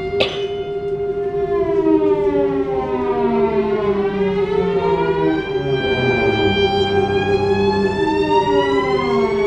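Contemporary chamber music for violin, cello, clarinet and piano: a sharp struck attack just after the start, then one steady held note underneath while other voices slide slowly apart in long glissandi, some gliding up and some gliding down.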